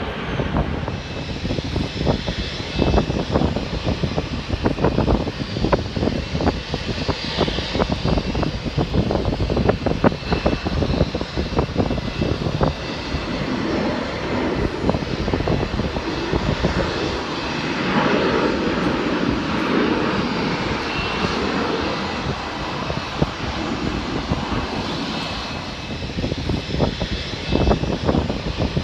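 Jet airliner engines running, heard as a steady rumble that grows louder about two-thirds of the way through, with gusty wind buffeting the microphone.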